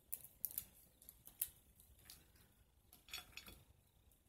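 Boiled crawfish shell cracking and crackling as it is peeled apart by hand: faint sharp clicks in the first second and a half and another cluster about three seconds in.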